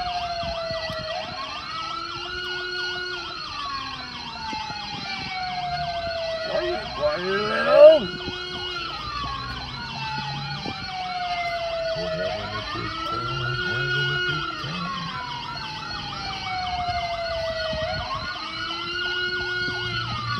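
Emergency-vehicle wail siren sounding continuously. Each cycle rises quickly, holds, then falls slowly, repeating about every six seconds, with a brief louder sweep about eight seconds in.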